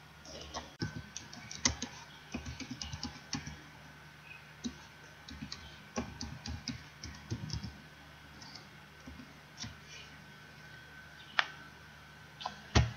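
Typing on a computer keyboard: irregular runs of key clicks with pauses between, and a harder keystroke near the end, over a faint steady hum.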